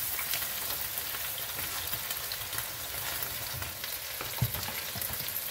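Chopped onion and flour sizzling in oil in a frying pan, stirred with a wooden spatula, with a few knocks of the spatula against the pan in the second half.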